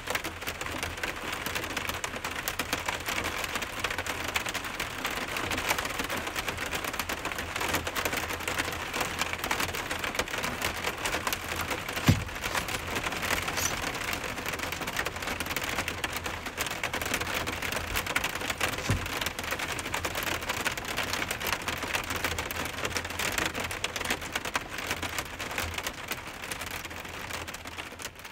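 Steady rain falling on a truck's roof, heard from inside: a dense, even patter of drops, with a couple of heavier knocks.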